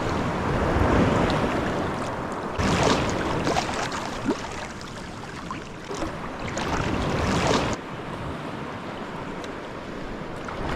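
Sea waves breaking and washing around swimmers, a rushing surf that swells and fades in surges, with wind on the microphone. The sound drops suddenly about two-thirds of the way through and is quieter after.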